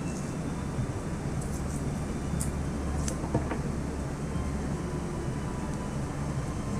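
A steady low rumble of background noise with a few faint short clicks and rustles.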